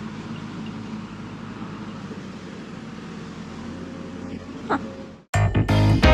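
Engine of a small front loader running, a steady low hum. Near the end it cuts off abruptly and background music starts.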